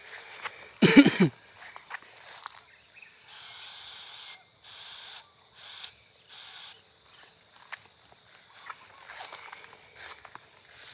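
Hand sprayer hissing in several short spray bursts between about three and seven seconds in, spraying insecticide at rice bugs on the rice stalks, over a faint steady high insect buzz. A brief loud call sounds about a second in.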